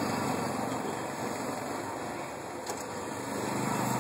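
Street traffic: steady engine and tyre noise from passing motor vehicles, with an approaching engine growing louder near the end.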